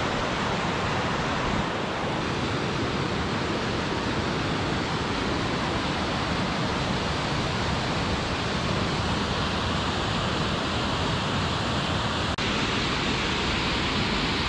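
Mountain waterfall rushing down over rocks: a steady, dense wash of water noise, with a brief break about twelve seconds in.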